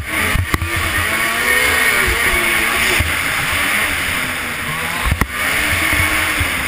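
Snowmobile engine running under way, its pitch drifting up and down with the throttle over a steady rush of noise, heard from a helmet-mounted camera. Two sharp knocks cut through, about half a second and about five seconds in.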